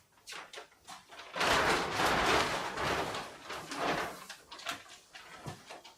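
Packing materials and delivered chimney pipes being handled: a few light knocks, then about three seconds of loud rustling and scraping, tapering into scattered knocks.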